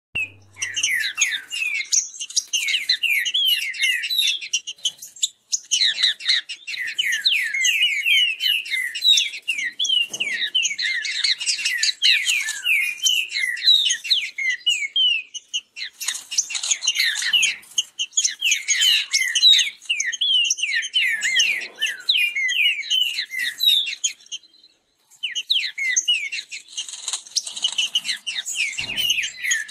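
Green-winged saltators (trinca-ferro) singing fast song against each other: long, dense runs of rapid, short downward-sliding whistled notes, broken by a brief pause about every ten seconds.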